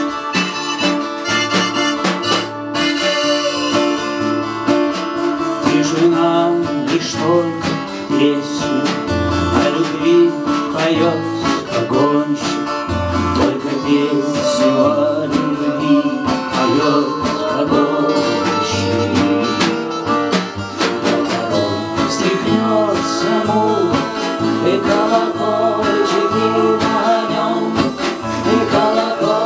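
Live acoustic guitar strumming with a harmonica playing, and a woman's voice singing at times.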